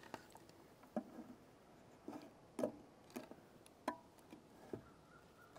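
Ubiquiti U7 Outdoor access point being fitted onto its pole mount: a string of faint, irregular clicks and knocks of its housing against the mount, about eight in all.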